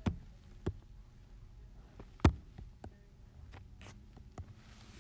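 Stylus tapping and drawing on an iPad's glass screen: a few soft, separate clicks and knocks, the loudest a low thump about two seconds in, over a faint steady hum.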